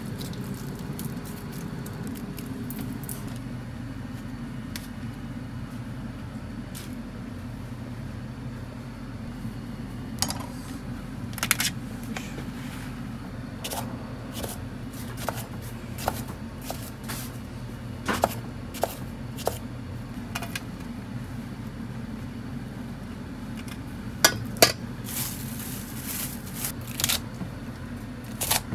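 Kitchen knife cutting on a plastic cutting board in scattered chops and taps, through green onion and then crisp napa cabbage, busiest and loudest near the end. Under it a steady low kitchen hum.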